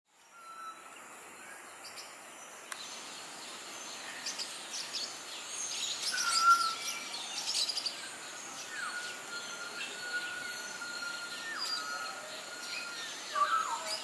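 Aviary ambience: a steady background hiss with various birds chirping and whistling, including a long, level whistle, and a louder flurry of short, sharp sounds about halfway through.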